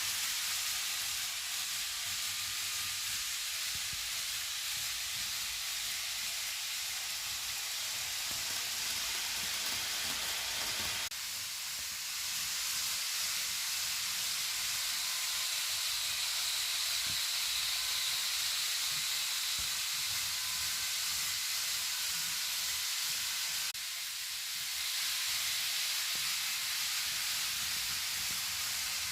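N gauge model of a Kintetsu 80000 series Hinotori running on its track: a steady hissing whir of motor and wheels with a faint high whine and small ticks. The sound shifts abruptly twice.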